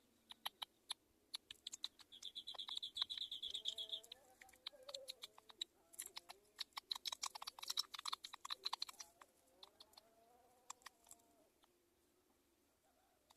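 Birds calling: a high, rapid trill lasting about two seconds, starting about two seconds in, amid a scatter of sharp clicks and ticks that grow dense in the middle and thin out near the end. Faint wavering calls run lower beneath.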